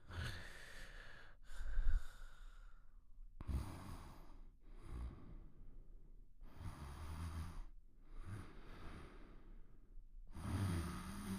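Slow, noisy breathing of a sleeper, snoring softly: breaths in and out alternate about every one and a half seconds, some with a low rattling flutter.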